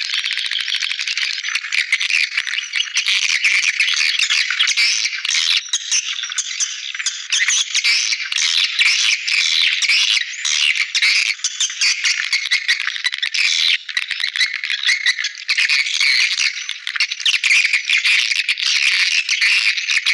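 A swiftlet call recording of the kind played as a lure to draw swiftlets into a nest house. It is a dense, unbroken chorus of rapid, high-pitched buzzy chirps and twitters, with no low end.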